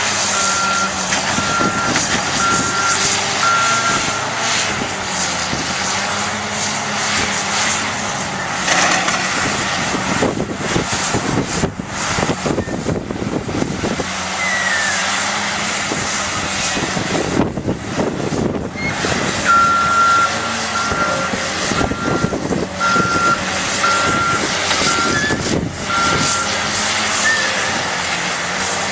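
Heavy diesel construction machinery running steadily, with a backup alarm beeping at an even pace for the first few seconds and again from about two-thirds of the way through.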